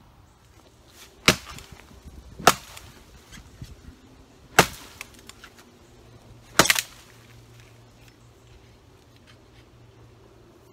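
FiveJoy survival shovel's blade chopping into a fallen log: four sharp strikes, the last a little past the middle.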